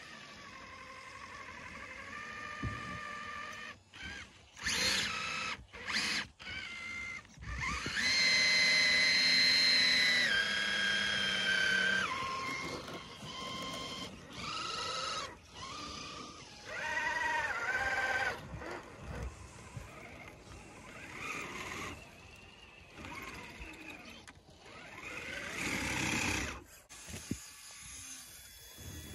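Electric motors of scale RC crawler trucks whining in stop-and-start bursts as they are driven through deep snow, the pitch rising and falling with the throttle. The longest, loudest whine comes about a quarter of the way in.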